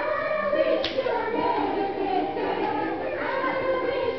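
A group of young children singing together as a choir, many voices at once, with a short sharp click about a second in.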